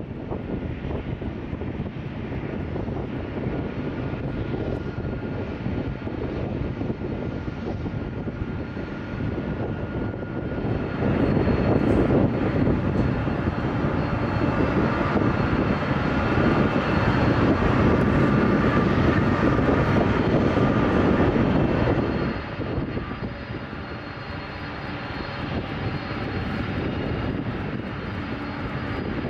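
Airliner engines running, a steady rumble with a thin whine over it. It swells about a third of the way in, stays loudest for roughly ten seconds, then falls off quickly.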